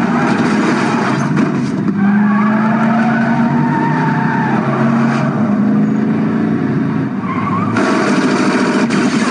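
Loud, dark sound design from a video-game trailer: a low droning tone that shifts pitch every couple of seconds over a dense rumble, with a harsher hiss coming in near the end.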